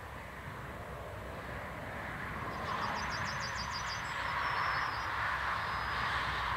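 A train approaching the level crossing: a steady rushing rail noise that grows louder. About three seconds in, a quick run of high chirps, about eight a second.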